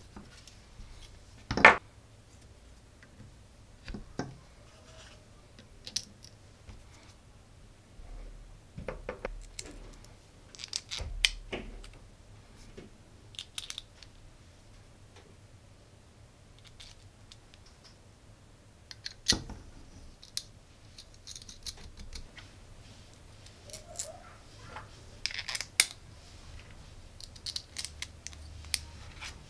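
Hands fitting plastic gears and small bolts onto an aluminium robot chassis: scattered clicks, taps and light scrapes of the parts, with a few sharper knocks.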